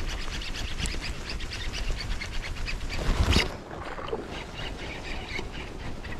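Baitcasting reel being cranked, a rapid run of fine clicking from the turning handle and gears. A louder, brief rustling burst comes about three seconds in.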